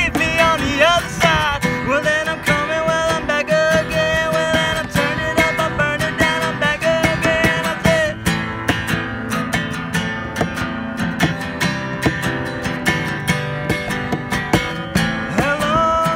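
A man singing live to his own strummed acoustic guitar. The voice holds long notes through the first few seconds, drops back to steady strumming from about halfway, and comes in again near the end.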